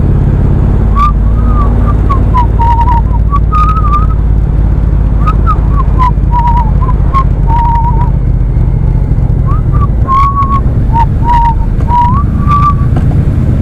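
A person whistling a wandering tune in short notes over the steady low rumble of a moving motorcycle and wind on the microphone. The whistling begins about a second in and stops shortly before the end.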